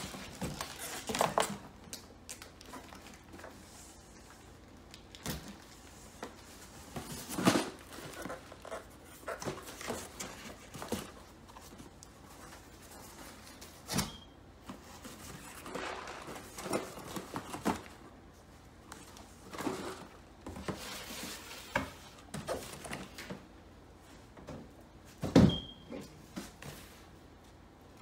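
Cardboard boxes and grocery packs being handled, slid and set down on a folding table: irregular rustling and scraping with scattered knocks, the loudest a single thump near the end.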